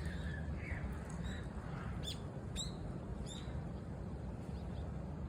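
Small bird chirps, three short falling calls a little after halfway, over a steady low outdoor rumble.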